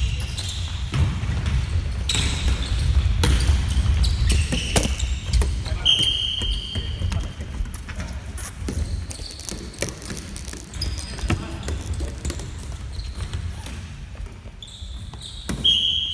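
Indoor neohockey play on a wooden gym floor: sharp clicks of plastic sticks hitting the ball and each other, and running footsteps thudding on the boards. Sneakers squeak briefly a few times, most clearly about six seconds in and again near the end.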